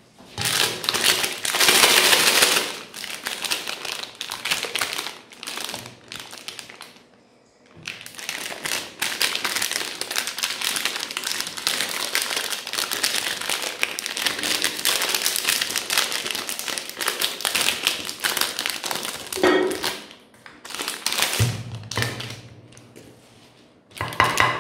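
Plastic ice cream bar wrapper crinkling and rustling as it is torn open and peeled off by hand, in long runs of dense crackling with a short pause partway through and a sharper knock near the end.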